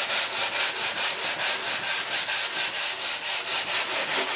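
Long aluminium sanding block with 100-grit sandpaper being stroked back and forth along the balsa leading edge of a model jet's tail stab. It is a rapid, even rasping, about four strokes a second, as the edge is block-sanded straight to take out a small lip.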